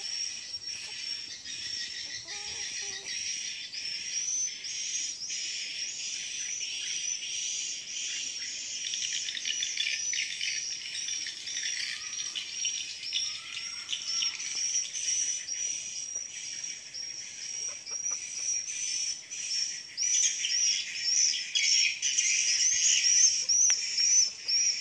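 Continuous high-pitched chorus of insects and chirping birds in tropical undergrowth, growing louder near the end.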